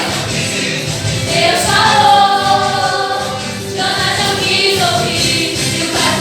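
A choir singing a Christian gospel song over instrumental accompaniment.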